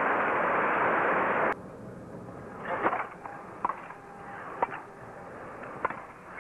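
Crowd applause that cuts off abruptly about a second and a half in, followed by a tennis rally: four sharp racket strikes on the ball, roughly a second apart.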